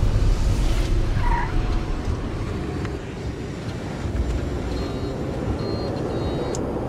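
A Learjet touching down and rolling out on the runway with its landing gear down and locked, heard from inside the cockpit. A heavy rumble is loudest at first and eases off as the jet slows, with a short squeal about a second in.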